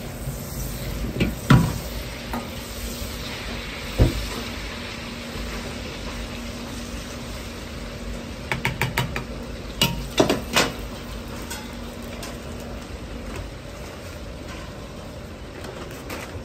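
Butter sizzling and bubbling in a hot wok, with a few sharp metal clinks and knocks of a ladle against the pan, including a quick run of light taps about halfway through.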